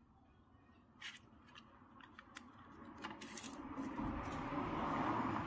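Light metallic clicks and clinks as a cut copper pipe is set in a flaring tool's clamp bar, followed by louder rubbing and handling noise that builds toward the end.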